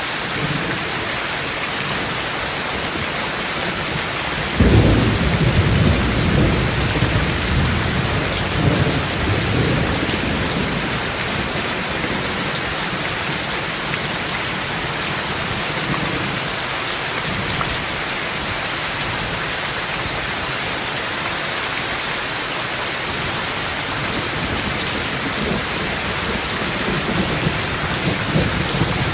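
Steady heavy rain hissing, with a thunderclap breaking about four and a half seconds in and rumbling on for several seconds; fainter thunder rumbles again near the end.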